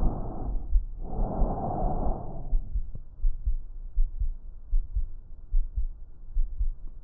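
Breath sounds heard through a stethoscope: a rushing breath noise that ends about half a second in, a second one from about one to two and a half seconds, then a long pause. Low heartbeat thuds run underneath.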